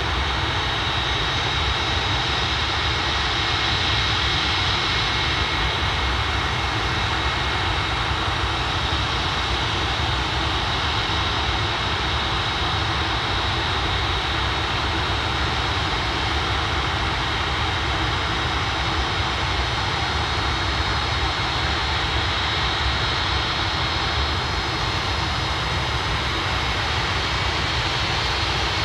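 Jet aircraft engines running steadily, a constant rumble with a thin high whine held on one pitch.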